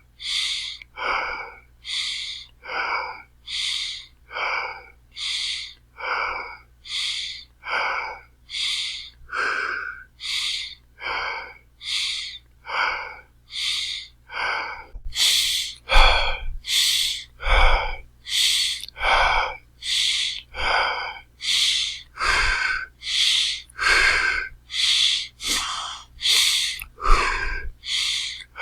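Heavy, fast human breathing, each breath in and out a hard rush of air, at a steady rhythm of about three breaths every two seconds. From about halfway through the breaths get louder, and some carry low thumps.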